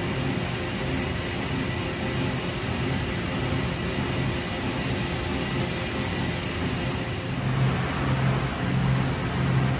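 Steady mechanical hum and hiss of powered industrial machinery, with a low pulsing hum that starts about seven seconds in and comes and goes roughly once or twice a second.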